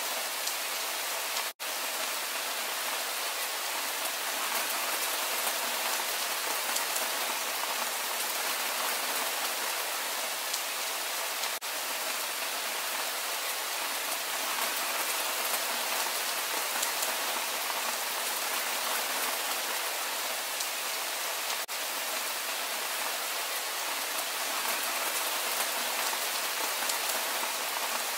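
Steady rain: a dense, even hiss of falling drops, broken by split-second dropouts about every ten seconds.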